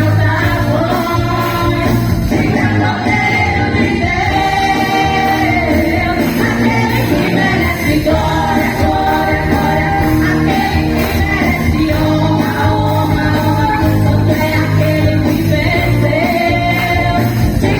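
A women's choir sings with band accompaniment, holding long notes over a steady bass line.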